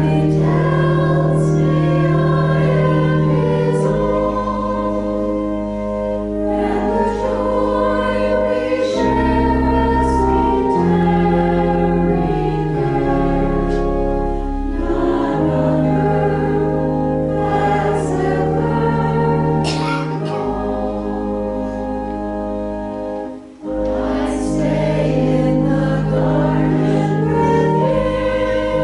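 Voices singing a hymn in chorus with organ accompaniment, the organ holding sustained bass notes that change in steps. The music dips briefly about three-quarters of the way through, between phrases.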